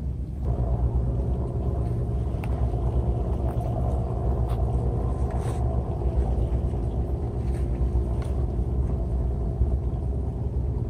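An engine running steadily, a low rumble with a constant hum above it, starting about half a second in. A few faint clicks sound over it.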